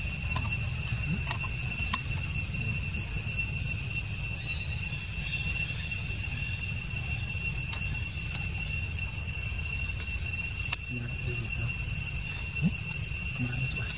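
Forest insects singing in one steady, unbroken high-pitched chorus, over a low rumble, with a few sharp clicks.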